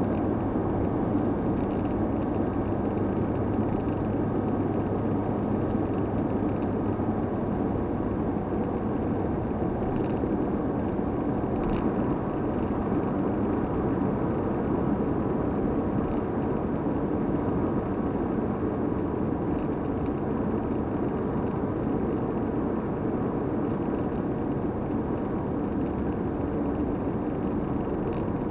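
Steady road noise of a car driving at motorway speed, heard from inside the cabin, with a low hum that drops away about ten seconds in.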